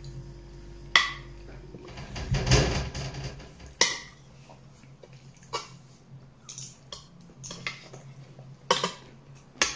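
Metal spoon clinking against a glass baking dish while eating, about five sharp separate clinks, with softer eating noises between them.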